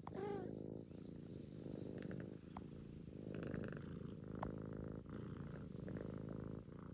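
A cat purring steadily, close up, opening with a brief pitched call that bends up and down.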